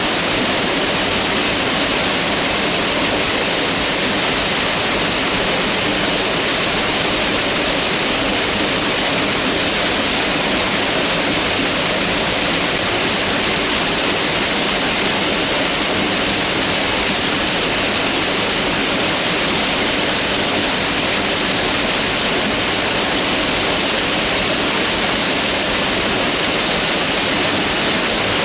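Mountain river rushing over rocks, a loud, steady white-water rush that does not change.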